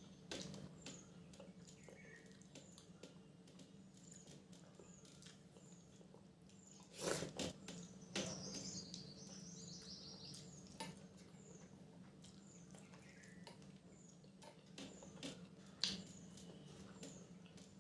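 Faint eating sounds of a person eating rice and curry: scattered wet mouth clicks and smacks, a louder cluster about seven seconds in, over a low steady hum.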